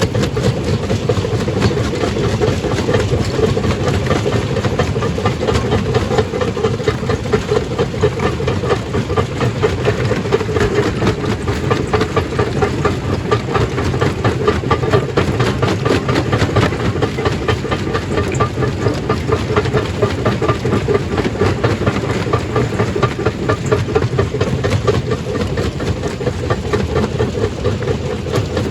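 Stone crusher running steadily, with a continuous dense clatter of rock being broken and rattling through it over a low machine drone.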